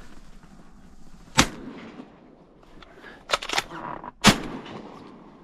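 Two shotgun shots about three seconds apart, the second the loudest. Between them comes a quick clatter of metal clicks as the gun's action is worked to clear a malfunction.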